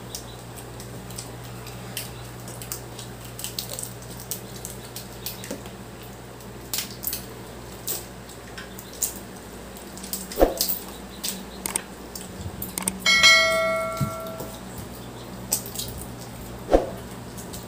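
Eating a seafood boil by hand: scattered clicks, cracks and soft squishes of crab and shrimp shells being broken and picked, over a steady low hum. About 13 s in, a single bright ringing clink fades out over about a second and a half.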